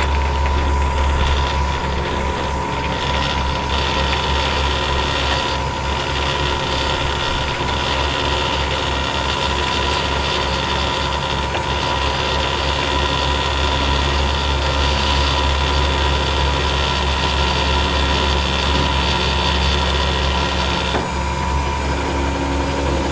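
Rollback tow truck's hydraulics running under power from the truck engine, a steady drone with a constant whine and a hiss that drops away near the end.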